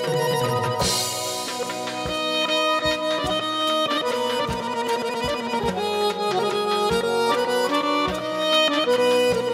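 Piano accordion playing a solo melody of sustained reedy notes that move from pitch to pitch, in the Azerbaijani Segah mode.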